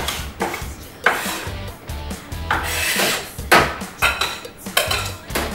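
A chef's knife scraping and knocking on a wooden cutting board and against a glass bowl in a handful of separate strokes, as the chopped onion and jalapeño paste is scraped into the bowl.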